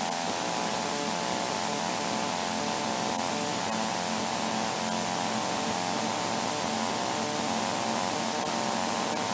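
Light aircraft engine and propeller droning steadily, heard from inside the cockpit as a held hum under a constant hiss.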